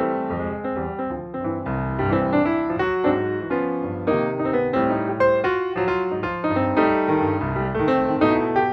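Background piano music with a steady bass line and many quick notes.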